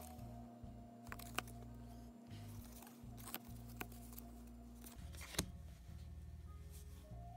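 Baseball cards being thumbed through off a stack in the hands: soft sliding of card on card with a few sharp card clicks, the loudest about five and a half seconds in.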